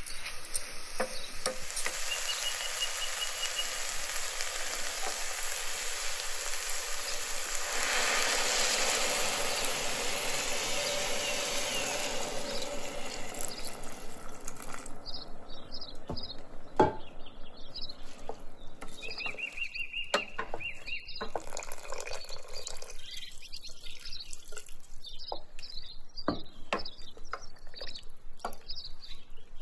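Risotto rice sizzling in a stainless steel pot as a wooden spoon stirs it, with the hiss growing louder about eight seconds in and dying away at around fourteen seconds once the stock is in. After that come scattered short clicks of the spoon in the wet rice, and birds chirp now and then in the background.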